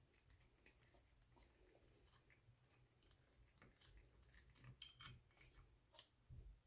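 Near silence with faint scattered clicks and light scraping of small metal parts, one click a little louder about six seconds in: a screwdriver working on the screws of a red-dot sight mounted on a pistol slide.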